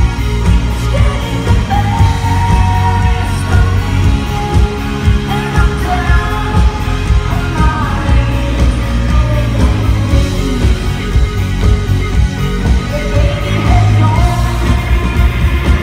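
Live rock band playing: a woman sings the lead over electric guitar, bass guitar and drums, with heavy low end, recorded from among the audience.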